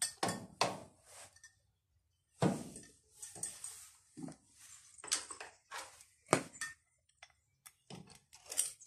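Irregular clicks, knocks and short scrapes of metal and plastic washing-machine parts being worked by hand during disassembly, with two louder knocks about two and a half and six seconds in.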